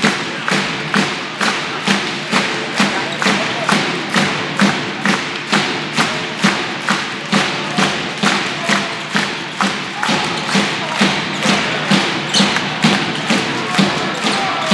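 Handball arena crowd beating out a steady rhythm, about two and a half loud beats a second, each with a low thud, over crowd noise.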